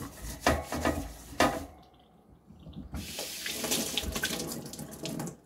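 Kitchen tap running into a metal sink as a wire oven rack is rinsed: two sharp sounds in the first second and a half, then a steady rush of water from about three seconds in.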